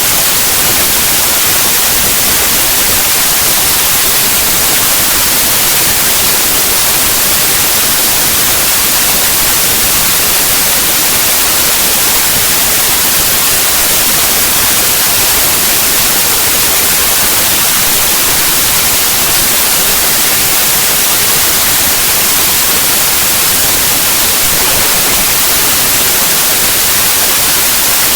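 Raw bytes of a compressed zip archive played back as 8-bit unsigned mono audio: a loud, steady hiss of white noise, brightest in the treble, with no tones or rhythm.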